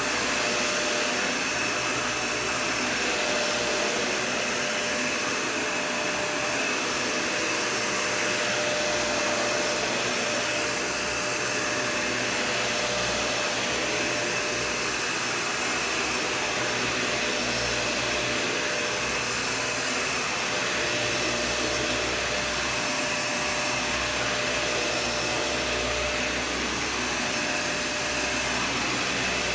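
Dyson Ball Total Clean (UP13) upright vacuum running continuously with a steady whine. The sound swells and eases every few seconds as it is worked back and forth.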